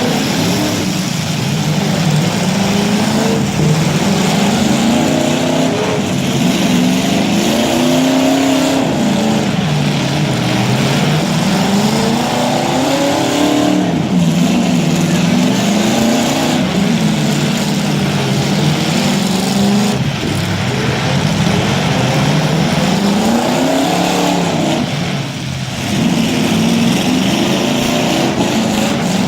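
Demolition derby cars' engines revving, their pitch rising and falling back again and again, with several engines overlapping.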